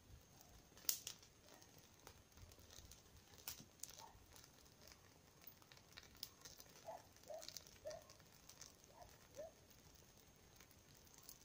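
Small wood campfire of twigs and dry grass crackling faintly, with scattered sharp pops and snaps; the loudest snap comes about a second in.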